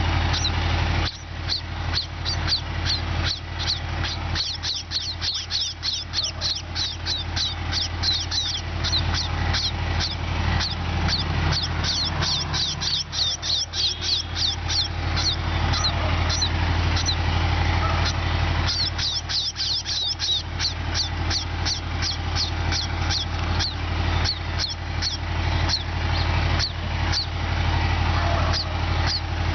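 A flock of sparrows chirping: many short, high chirps in quick succession, thinning briefly a couple of times, over a steady low rumble.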